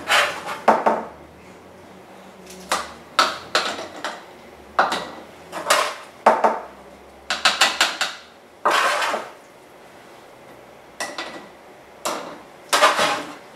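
Metal tongs and a spoon clinking and scraping against a roasting pan and glass canning jars as cooked onions are dished into the jars. Irregular clusters of sharp clinks, with a longer scrape about nine seconds in.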